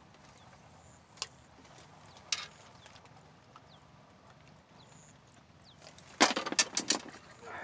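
Two faint single clicks, then a quick run of five or six sharp knocks and rattles about six seconds in as a fishing rod is set down into the rod rack on the platform.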